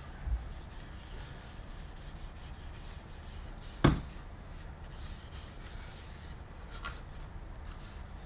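Gloved hands rubbing Danish oil into a wooden stand, a faint, uneven swishing of cloth on wood. A single sharp knock of wood on the workbench comes about four seconds in as the piece is picked up.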